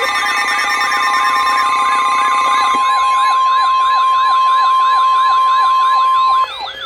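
NOAA Weather Radio's 1050 Hz warning alarm tone, a loud steady high tone, layered with a fast, repeating warbling alert. Some extra tones drop out about three seconds in, and the alarm cuts off suddenly near the end, ahead of the warning message.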